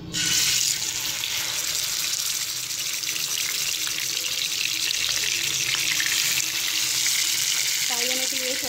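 Masala-coated chicken leg pieces sizzling in a shallow layer of hot cooking oil in a frying pan, the sizzle starting suddenly as the first leg goes in and then holding steady.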